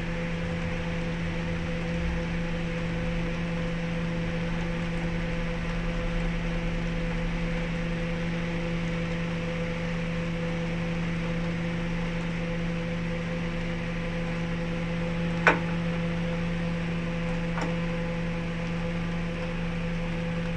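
Electric motor running with a steady hum. There is one sharp knock about fifteen seconds in and a fainter one about two seconds later.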